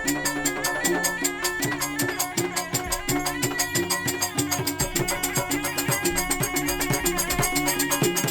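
Serunai, the Malay double-reed oboe, playing a melody of held notes that step up and down, over low drum strokes and a fast, even percussion beat of about five strikes a second. This is the sound of a traditional Malay ensemble.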